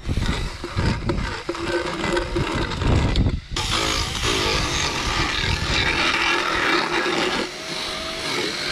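Motorized equine dental float grinding against a horse's molars, filing off sharp enamel edges. It cuts out for a moment about three and a half seconds in, then grinds on with a whine over the rasping.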